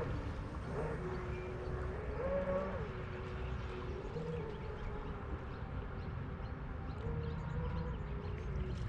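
Distant whine of an electric RC boat motor, holding one pitch and rising and falling a few times as the throttle changes, over a low wind rumble.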